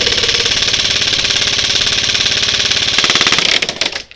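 Airsoft electric gun firing full-auto in one long burst of rapid, evenly spaced shots with the gearbox whirring, close by; it breaks off into a few short bursts near the end.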